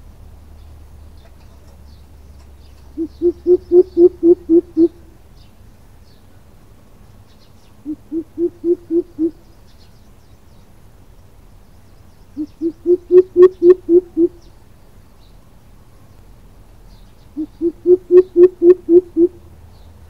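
Greater coucal calling: four runs of deep, evenly spaced hoots, each of six to nine notes that start softer and build in volume, with pauses of about three seconds between runs.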